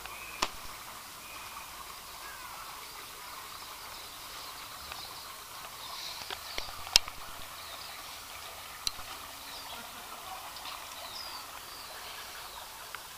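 Small birds chirping and twittering over a steady background hiss, with three sharp knocks, the loudest about seven seconds in.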